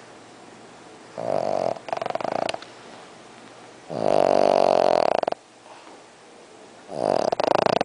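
Dog snoring in its sleep: three long snores a few seconds apart, each with a rattling flutter.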